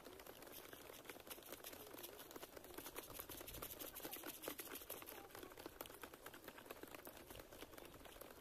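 Faint, dense patter of many running feet on a dry dirt track as a group of runners passes, irregular crackly footfalls over a light hiss.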